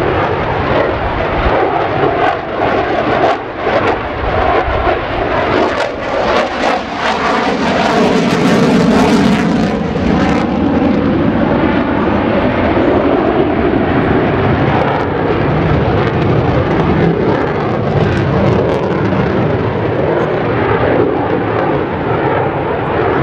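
Mitsubishi F-15J Eagle's twin turbofan jet engines, loud and continuous as the fighter maneuvers overhead. It grows loudest about eight seconds in, with a falling pitch as it passes.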